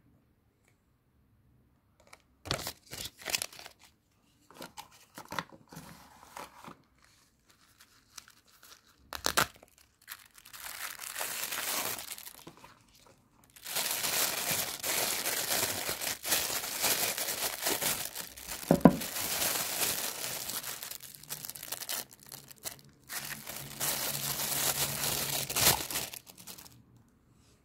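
Thin plastic packaging bag crinkling and rustling in the hands as it is worked off a pair of binoculars, in long stretches through most of the second half. Before that come scattered short taps and rustles of paper handling.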